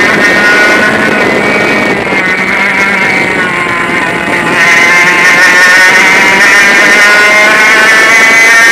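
100cc two-stroke kart engine at racing speed, heard from the driver's helmet. The revs fall as the kart slows into a corner over the first few seconds, then climb again from about halfway as it accelerates out and holds high revs.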